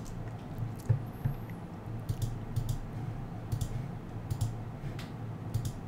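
Computer mouse clicked about half a dozen times at uneven intervals, each click a quick pair of ticks, over a low steady hum.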